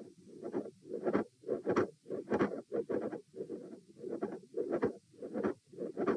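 Heart sounds heard through a stethoscope, a regular heartbeat repeating steadily, with the subject sitting. The recording is labelled as showing a mid-systolic click and a fixed split second heart sound, findings typical of mitral valve prolapse and an atrial septal defect respectively.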